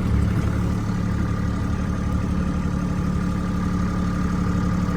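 Kubota farm vehicle's engine idling steadily, with a faint steady high whine over the low engine hum.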